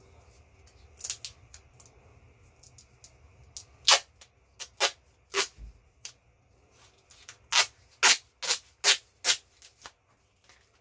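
A series of sharp knocks from a hand tool being worked against the massager's cast aluminum case while prying it apart. There are a few scattered knocks, then a quicker run of about six, roughly two a second, in the second half.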